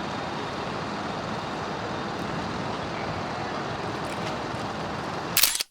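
Steady engine and road noise of heavy fire-brigade vehicles driving by, with no siren. Near the end a loud sudden burst, then the sound cuts off.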